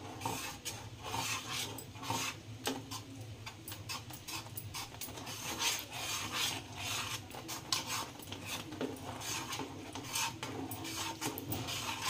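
Flat steel spatula scraping and stirring a thick semolina-and-milk mixture in a non-stick pan, in repeated irregular strokes as the semolina cooks down over low heat.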